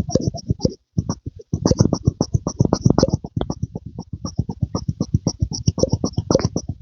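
Close-miked ASMR pumping sounds: a fast, irregular run of short soft pumps, several a second, each with a faint click, pausing briefly just before the end.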